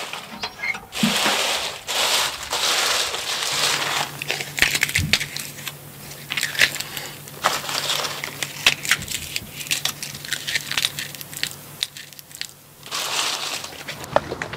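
Dry bean pods and stalks crackling and rustling as they are handled and shelled by hand: many small crackles with louder stretches of rustling.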